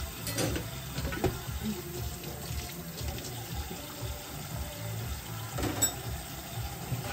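Kitchen tap running into a stainless steel sink as dishes are rinsed, with a few sharp knocks of dishes against the sink, the loudest about six seconds in.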